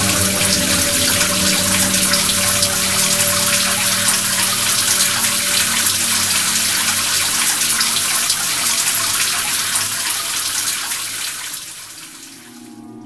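Steady rush of running water, like a shower falling on tile, over a soft sustained music drone; the water fades out near the end.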